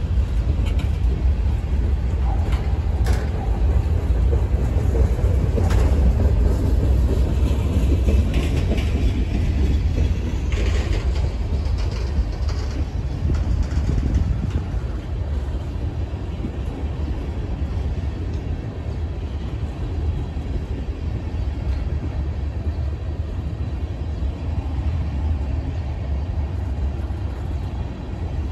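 Freight train of tank cars rolling past: a steady rumble of wheels on rail, with a few sharp clicks in the first half, easing slightly in the second half.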